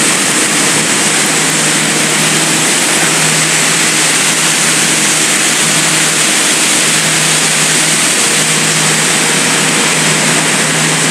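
Sugar factory machinery running: a loud, steady, even hiss with a faint low hum underneath, unchanging throughout.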